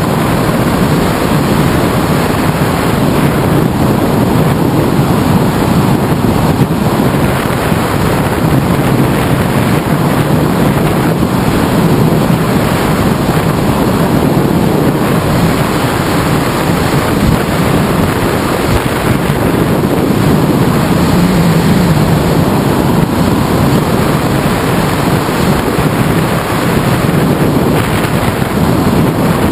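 Loud, steady rush of wind buffeting the microphone of a camera mounted on a hang glider's wing in flight.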